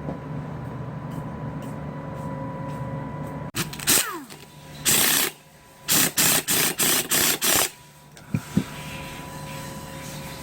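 A steady mechanical hum with a constant tone. About three and a half seconds in, a falling whine is heard, then a loud hiss and a quick row of six short hissing blasts, like air sprayed in short bursts, and two sharp clicks before the hum settles back.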